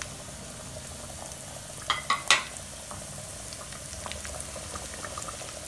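Sliced shallots frying in oil in a nonstick pan, a steady light sizzle dotted with small crackles; the oil is only just hot. About two seconds in come three sharp clinks.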